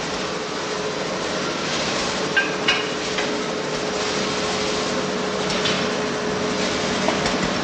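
Steady din of coffee-roasting machinery with a held hum. A few sharp metallic clanks come about two and a half seconds in and twice more later.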